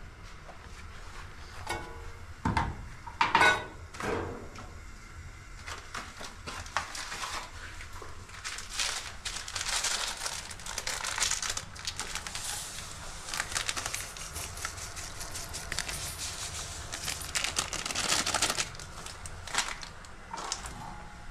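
Kitchen handling sounds: a few sharp knocks as a plastic jelly mould and steel bowl are set down on a stone counter, then a long stretch of crinkling and rustling as a packet is handled at the counter.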